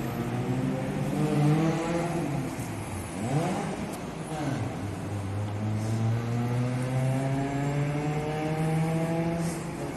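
Road traffic: car engines running and accelerating past. About three seconds in one engine note dips and rises quickly, and through the second half another engine note climbs slowly and steadily.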